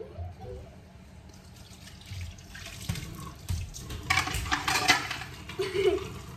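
Water running from a kitchen tap and splashing, building up about a second and a half in and loudest a little past the middle.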